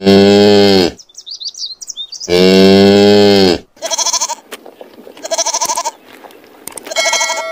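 A cow mooing twice in long, deep calls, with faint bird chirps between them. Then a goat bleats three times in short, wavering calls.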